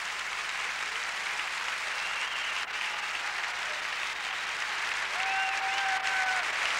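Audience applauding, with one long held cheer from the crowd about five seconds in.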